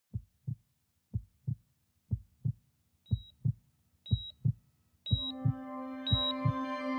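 Heartbeat sound effect: paired low lub-dub thumps, about one beat a second. From about three seconds in a short high beep sounds with each beat, like a heart monitor, and about five seconds in sustained music chords come in under it.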